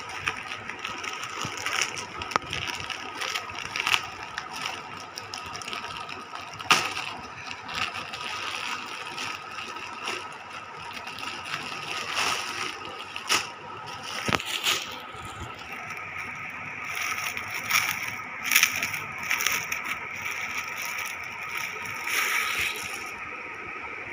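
Plastic courier mailer crinkling and tearing as hands pull it open, with many sharp crackles of the plastic throughout.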